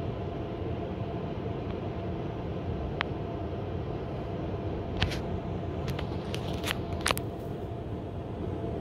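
Hotel room air conditioner running steadily right under the microphone, a constant noise with a faint steady hum. A single sharp tick comes about three seconds in, and a cluster of sharp ticks follows between about five and seven seconds.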